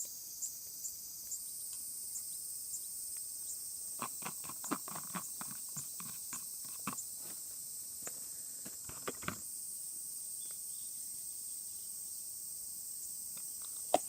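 Crickets chirping in a steady high chorus, with a run of light clicks and knocks from about four to nine seconds in.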